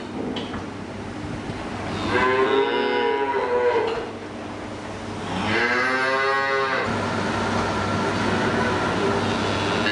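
Holstein calves mooing: two long moos, about two and five seconds in, each rising and then falling in pitch, over a steady low hum.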